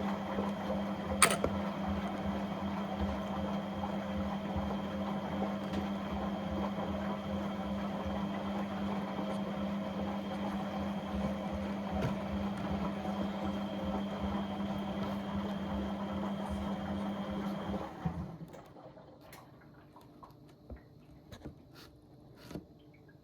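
An appliance motor running with a steady hum and a low rhythmic pulsing. It cuts off suddenly near the end, leaving only faint clicks and ticks.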